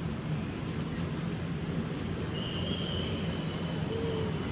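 Steady high-pitched drone of insects, over a constant low rumble.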